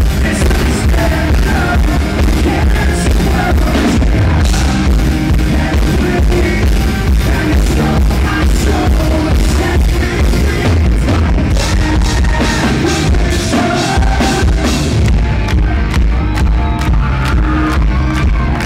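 Live rock band with a male lead singer, recorded from the audience, the heavy bass and drums distorting the recording.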